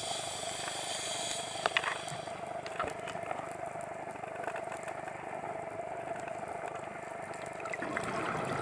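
Underwater sound heard through a dive camera housing: a steady mechanical hum over a wash of water noise, with a few sharp clicks in the first three seconds.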